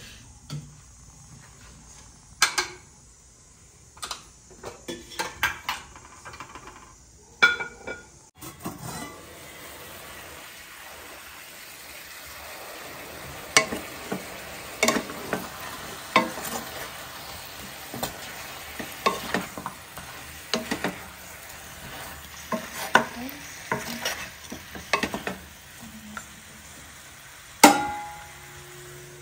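Pork pieces sizzling in a nonstick frying pan, stirred with a wooden spatula, with repeated scrapes and knocks against the pan over a steady hiss. For the first several seconds, before the sizzling starts, dishes and a steel ladle clink in a plastic washing basin.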